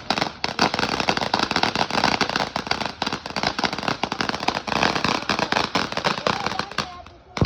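Fireworks going off in a dense, rapid run of crackling pops, with a short break near the end.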